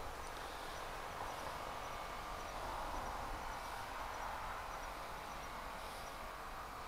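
Outdoor ambience: a steady even hiss with a scattering of faint, short high chirps.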